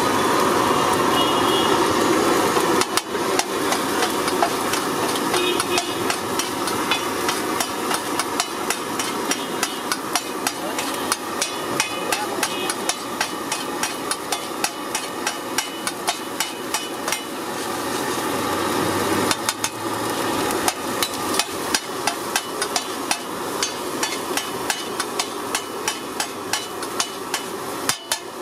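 Metal ladle and spatula clanking against a large flat iron griddle (tawa) as rice is mixed and chopped on it, several quick strikes a second over a steady hiss.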